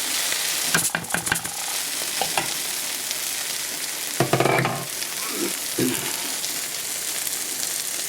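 Lamb brain fry masala still sizzling in the hot pan with the fire just turned off, a steady hiss. A few sharp knocks come about a second in, and a short louder sound about four seconds in.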